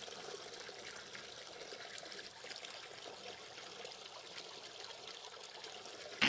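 Water trickling and splashing steadily from a spout into a stone fountain basin, with a brief thump at the very end.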